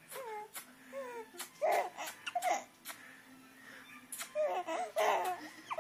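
A baby vocalizing in short, high-pitched bursts of laughter and babble. It goes quieter in the middle and picks up again with a run of sounds near the end.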